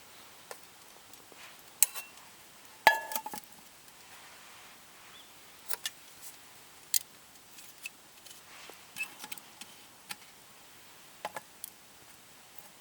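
Camp cookware and utensils being handled: scattered light clicks and taps, with one louder ringing metal clink about three seconds in.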